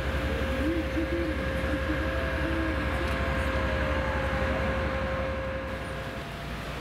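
TEP70BS diesel locomotive running at a standstill, coupled to an ES1P electric train: a low, pulsing engine throb with a steady whine over it. Both stop suddenly about six seconds in, leaving quieter outdoor noise.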